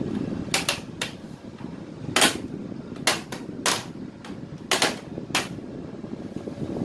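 About ten sharp clicks or taps at irregular intervals, some in quick pairs, the loudest about two seconds in, over a steady low airflow hiss.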